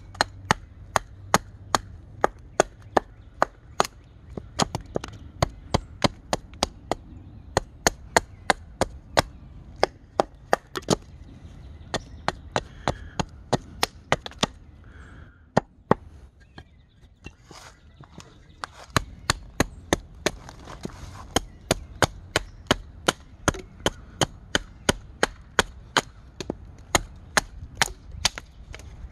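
Small hatchet chopping into a cherry-wood spoon blank: quick, sharp strikes at about three a second, with a pause of about four seconds around the middle before the chopping resumes.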